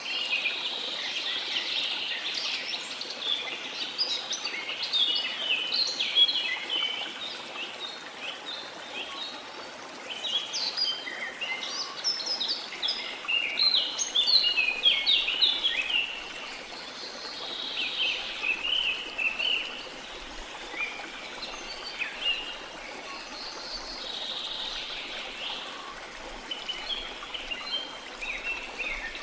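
Several birds singing and chirping in quick, overlapping bouts over the steady rush of waterfall water.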